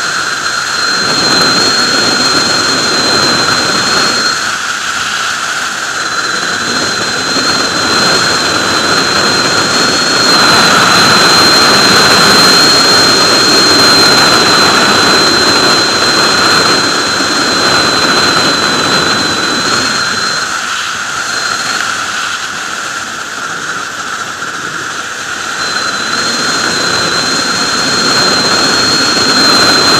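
Sport motorcycle at highway speed, heard from a rider-worn camera: a steady rush of wind over the engine, with a high thin whistle through most of it that drops out twice, briefly a few seconds in and for several seconds in the last third.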